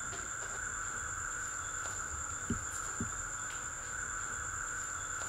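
A steady, high-pitched chirring insect chorus, like crickets at night, with two soft low thumps about half a second apart midway through.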